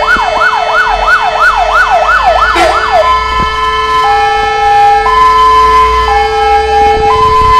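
Fire engine siren sweeping fast up and down, about three times a second, then switching about three seconds in to a two-tone high-low call with each note held about a second, over a steady lower tone.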